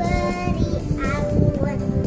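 A young girl singing a children's song over a musical backing track, with held, wavering notes in the melody.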